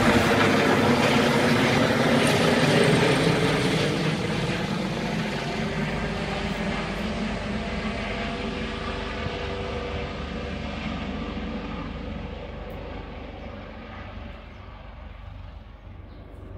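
Air ambulance helicopter's rotors and engines as it flies away after take-off, the sound fading steadily into the distance, its higher parts dying away first.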